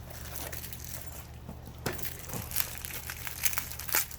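Packaging crinkling and crackling as it is handled, in irregular sharp crackles that grow busier about halfway through.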